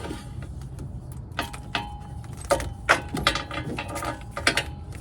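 Irregular clicks, knocks and rattles of hands handling electrical wiring and small hardware, over a steady low rumble.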